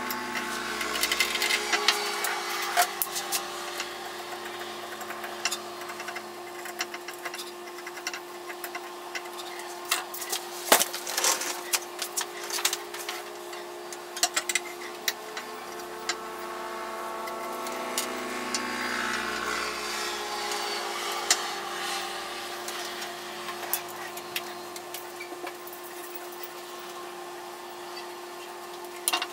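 Scattered clicks, taps and scrapes of a screwdriver and the saw's steel plate and wooden handle against a wooden workbench as the handle screws of an old Disston back saw are taken out. Under them runs a steady hum of several held tones that swells twice.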